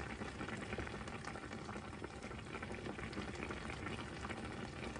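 Tomato and egg sauce of fish sarciado simmering in a stainless steel pan, bubbling with many small pops, while a wooden spoon stirs through it.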